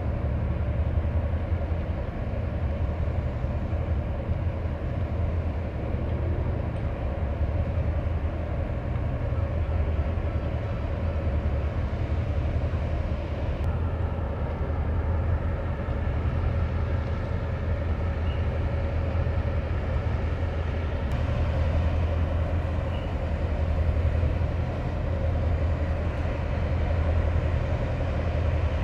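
Patrol vessel's diesel engines running steadily with a deep, even rumble and a constant hum, a faint higher whine joining about halfway through.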